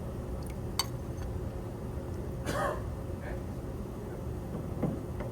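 Steady low hum of room noise with a sharp light click about a second in and a short, wordless vocal sound, like a throat clearing, about halfway through.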